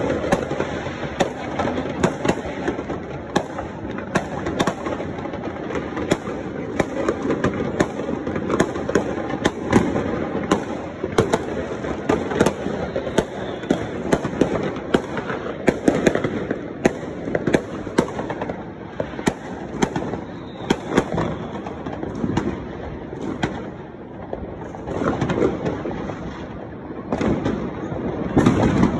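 Many fireworks going off at once: a constant rumbling haze of bursts, cut through by frequent sharp bangs and crackles. The barrage eases a little about three-quarters of the way through, then picks up again.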